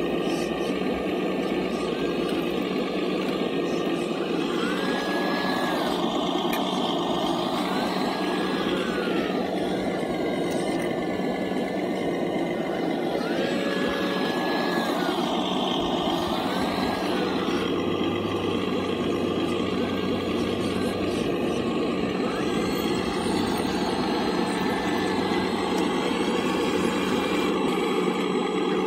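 Scale CAT RC hydraulic excavator running steadily. Its whine glides up in pitch, holds and drops back several times as the boom, stick and bucket move through the dirt.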